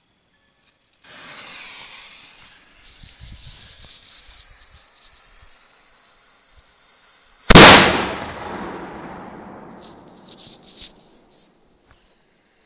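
A lit fuse hisses for about five seconds, then a homemade pipe cannon fires a marble with one loud bang about seven and a half seconds in. The bang dies away over a couple of seconds.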